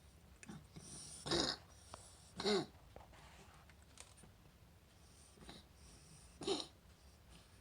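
Three wheezy coughs, two close together a little over a second in and one more about six and a half seconds in, with fainter hacks between.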